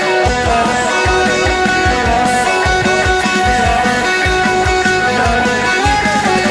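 Electric guitar playing a melodic line along with a worship-rock band recording, with drums keeping a steady beat.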